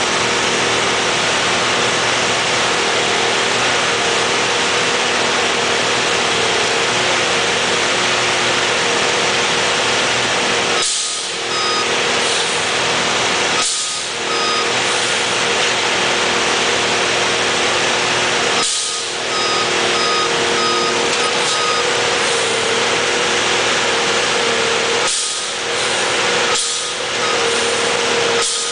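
Hydraulic railroad tie-inserter machine running loudly, its power unit holding a constant whine, with the noise dipping briefly several times as it works the ties. Short warning beeps sound in short runs a few times.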